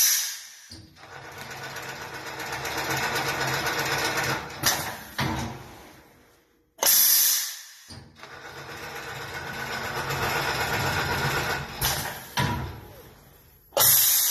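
Hector Styrteknik long-arm quilting machine stitching through a thick cushion in two cycles, each a run of rapid needle strokes that builds up and then tails off. Short, loud air hisses from the machine's pneumatics come at the start, about halfway through, and near the end.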